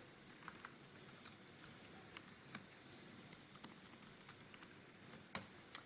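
Faint typing on a computer keyboard: light, irregular key clicks, with two sharper, louder clicks near the end.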